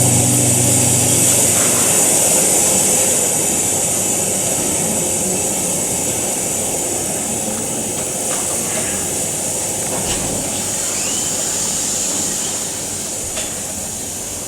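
A steady, bright rushing hiss, slowly fading over the seconds.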